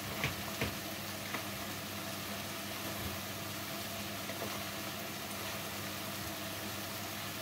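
Food frying with a steady sizzle over a constant low hum, with three sharp clicks in the first second and a half and a few fainter ones later.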